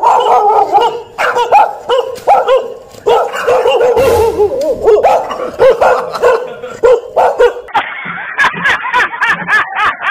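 Fake dog barking: rapid, loud barks and yips repeated several times a second, imitating a dog giving chase. About eight seconds in, music with a steady beat comes in.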